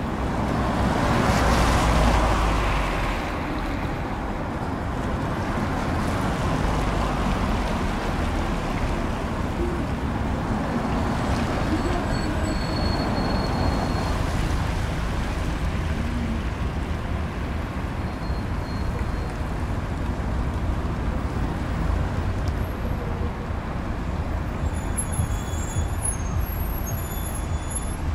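Steady road traffic noise from the street below, cars passing in a continuous rush. It swells louder about two seconds in.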